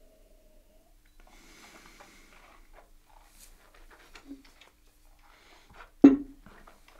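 Quiet mouth sounds of a taster sipping and working whisky around the mouth, with small wet clicks, then one sharp knock about six seconds in.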